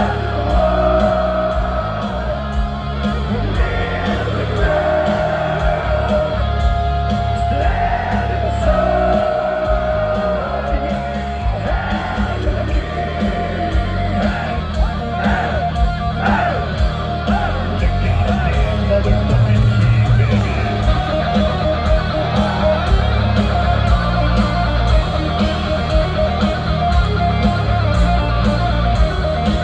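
Live heavy metal band playing: distorted electric guitars, bass and pounding drums under long held sung notes, heard from the audience.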